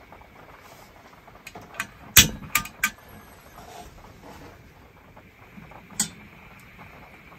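Igniter of a remote-canister gas camping stove clicking several times as the burner lights, the loudest snap about two seconds in; the burner then hisses faintly and steadily. One more sharp click about six seconds in.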